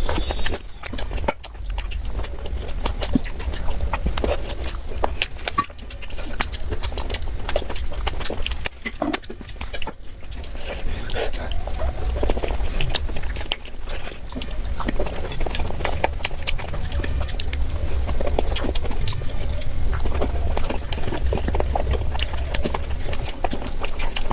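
Close-miked mukbang eating sounds: chewing and wet lip smacks while eating puri with mutton curry, a dense run of short irregular smacks and clicks over a low steady hum.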